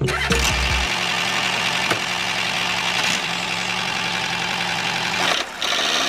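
Miniature DIY model tractor running with a steady engine-like drone, dipping briefly near the end.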